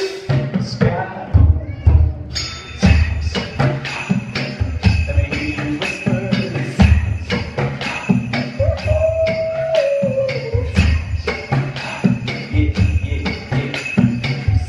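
Live percussion music: a steady beat of deep drum hits with jingling and clacking percussion over it. Past the middle a single held note sounds for about two seconds, dipping slightly at its end.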